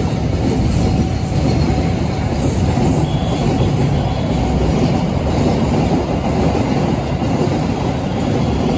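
Freight train's container and flat wagons rolling past on the rails: the loud, steady sound of steel wheels running on the track.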